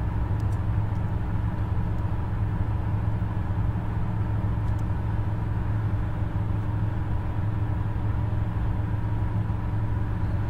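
Steady low droning hum of background noise, with a few faint clicks from typing on a keyboard.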